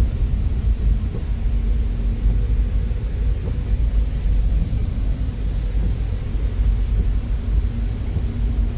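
Steady low rumble inside a car's cabin as it idles, with a faint steady hum coming in about two and a half seconds in.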